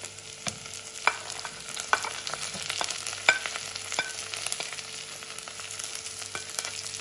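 Diced carrots and corn dropping into a nonstick pan of hot oil and fried onion and sizzling, with sharp clicks and scrapes as a spatula pushes the vegetables off a plate into the pan.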